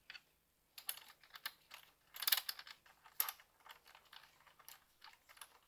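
Irregular light clicks and taps of hand tools and bolts being handled while the intake manifold bolts are started by hand, with a couple of louder clinks about two and three seconds in.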